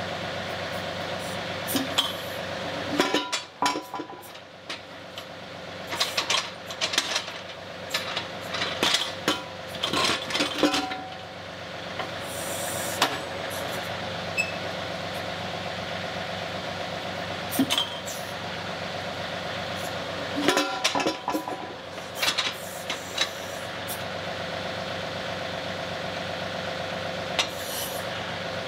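John Deere 2038R compact tractor's three-cylinder diesel running steadily while the backhoe works, with repeated metal clanks and knocks as the backhoe bucket and mechanical thumb grip a spare backhoe bucket and set it down on a concrete floor.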